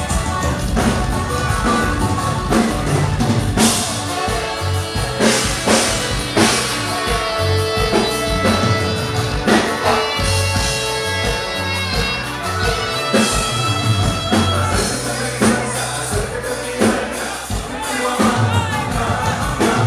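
Live Tejano conjunto band playing loudly through a PA: button accordion, drum kit and bass, with a voice singing over them.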